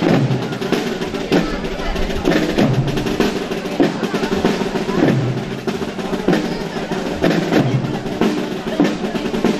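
Processional drums: snare drums rolling over a slow, steady bass drum beat, about one bass stroke every second and a quarter.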